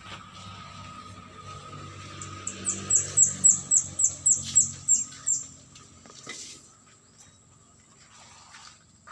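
A bird calling a rapid run of about a dozen high, falling chirps, roughly four a second, starting a couple of seconds in. A low hum underneath fades out about six seconds in.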